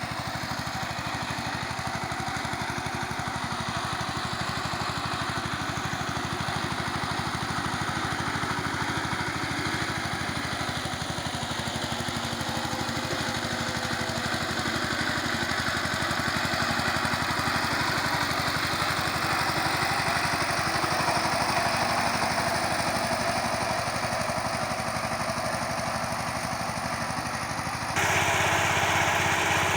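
Tractor engine running steadily while ploughing, with a fast, even firing beat. Near the end the sound jumps suddenly louder and changes character.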